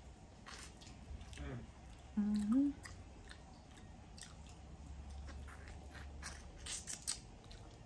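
Close-up mouth sounds of eating sauce-covered barbecue chicken: wet chewing and a run of small sharp smacks and clicks. A brief hummed "mm" comes about two seconds in.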